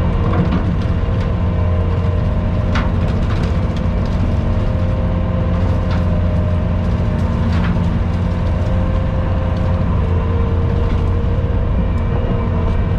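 Skid steer engine running steadily under way, a constant low drone with a few clicks and rattles.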